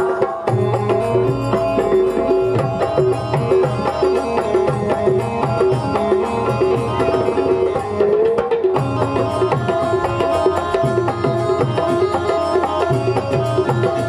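Instrumental passage of a Rajasthani folk bhajan: dholak hand drums keep a steady beat under a sustained melody.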